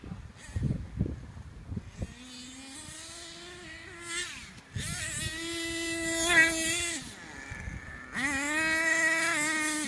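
HPI Savage radio-controlled monster truck's small engine buzzing at a high pitch in three throttle bursts, its pitch rising and falling as the truck is driven across the grass.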